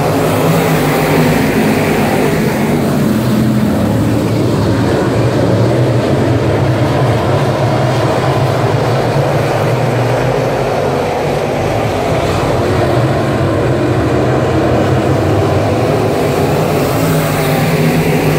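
Several dirt-track stock cars racing around the oval, their engines running loud and steady at racing speed.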